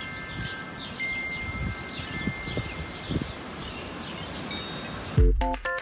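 A homemade wind chime of painted strips and metal washers on twine, stirring in the breeze: light clinks and a few sustained ringing notes over a low wind rumble. Music starts near the end.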